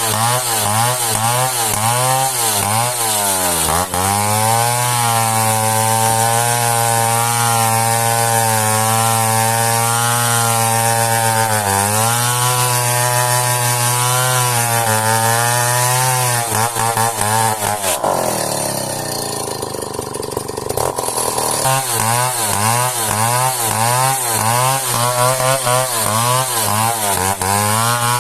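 Two-stroke chainsaw cutting into merbau hardwood, its engine note wavering under load and dipping sharply twice. For a few seconds past the middle the steady note gives way to a falling, noisier sound before the saw settles back into cutting.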